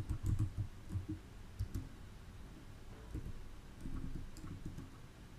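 Computer keyboard keystrokes: irregular clicks in short runs with pauses between, as a terminal command is typed.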